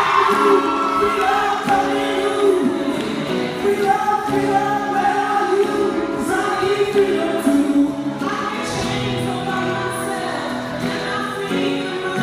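Music with a group of voices singing together, choir-style, in held notes.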